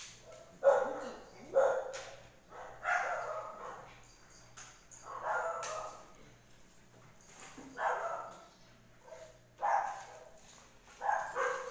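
Puppy barking in short bursts, about eight times at uneven gaps of one to two seconds, while play-fighting with another puppy.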